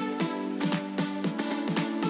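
Background music: a steady beat of about four strikes a second over held notes.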